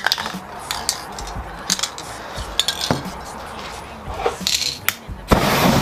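Metal spray-paint cans and their plastic caps being handled on a table, making scattered light clinks and knocks. Near the end comes a short, loud burst of spray-can hiss.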